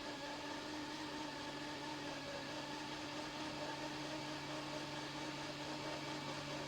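Hot air rework blower running steadily: a fan whir with a hiss of air and a few steady hums, heating the board's pads so the solder bridges (shorts) flow out.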